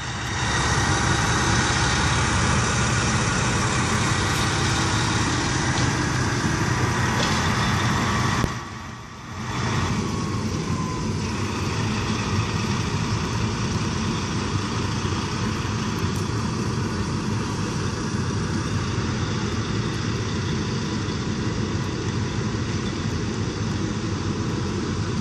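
SM42 diesel shunting locomotive idling with a steady low engine hum. The sound dips briefly about nine seconds in.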